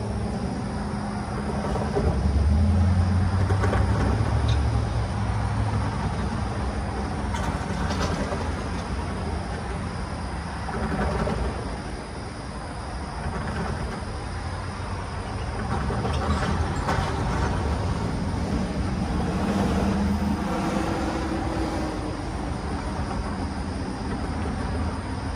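Steady low engine rumble, loudest a few seconds in, with cars passing over the railroad crossing now and then.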